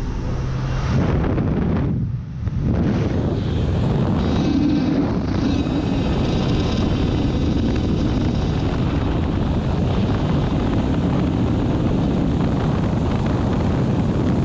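A propeller jump plane's engine and the rushing slipstream through its open door, with wind buffeting the microphone: a steady, loud roar that dips briefly about two seconds in, then holds.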